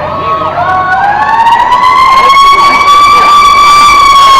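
Emergency vehicle siren wailing and getting louder, its pitch rising over the first two seconds, holding, then starting to fall near the end, with a second siren tone cycling quickly up and down beneath it.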